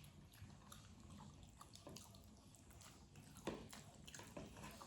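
Near silence with faint, scattered wet mouth clicks of someone chewing food, and one sharper click about three and a half seconds in.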